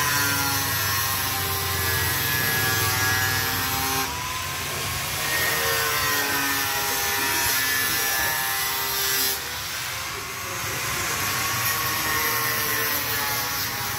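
Handheld electric power tool whining as it works on fiberglass sheeting on an iron frame. Its pitch dips briefly about four seconds in and again about nine seconds in.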